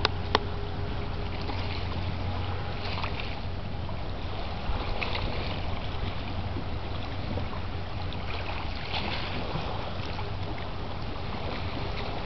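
Steady low drone of the passing lake freighter Algoma Buffalo under an even hiss of wind and river water, with two sharp clicks in quick succession at the start.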